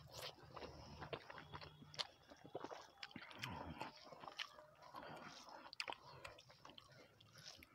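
Faint, close chewing and mouth clicks of someone eating rice by hand, irregular and scattered.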